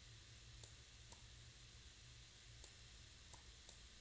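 Faint computer mouse clicks, about five scattered over a few seconds, against near-silent room tone with a low steady hum.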